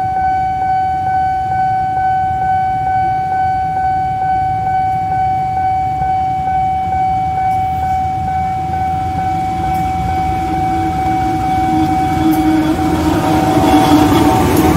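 Railway level-crossing warning bell ringing as a steady electronic tone in quick, even strokes while the barrier is down for an oncoming train. Near the end the rumble of the approaching diesel locomotive grows louder beneath it.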